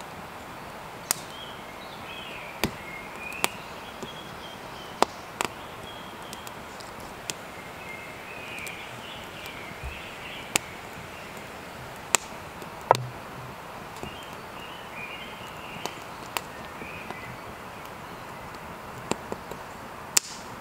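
Wood campfire crackling: sharp, irregular pops and snaps over a steady hiss, with birds chirping in the background.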